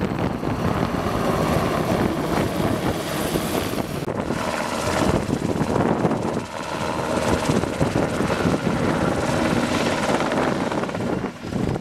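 Sikorsky S-70i Black Hawk helicopter flying past close by and then away, its rotor blades beating in a loud, rapid pulsing chop over the steady rush of its twin turboshaft engines.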